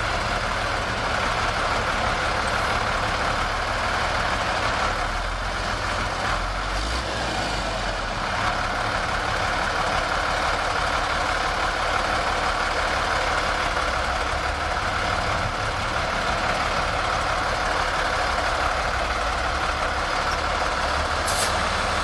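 Heavy diesel engine of earth-moving machinery running steadily, with a brief high click near the end.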